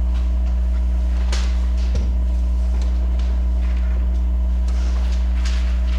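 Steady low electrical hum with a few faint higher steady tones above it, and a few faint clicks and a soft knock about two seconds in.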